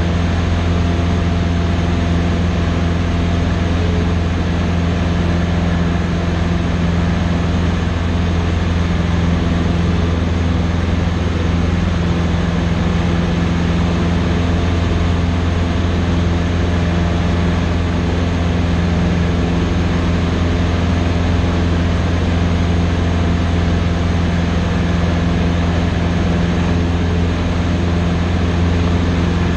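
Cessna 150's four-cylinder Continental O-200 engine and propeller running steadily in cruise flight, heard from inside the small cabin as a loud, even drone with a deep hum.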